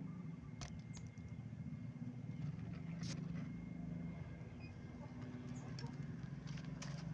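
A steady low hum, with a few light clicks and rustles as a motorcycle's wiring and plastic connectors are handled.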